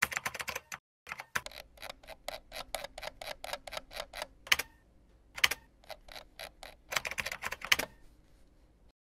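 Computer keyboard keys clicking as someone types, in quick irregular runs, with a few louder single clicks in between.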